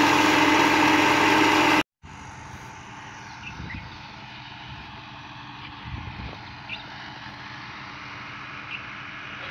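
Water gushing from a tubewell pipe into a pond over the steady running of the Fiat 640 tractor's diesel engine that drives the pump. The sound cuts off abruptly about two seconds in, leaving a much quieter steady hum with a few faint bird chirps.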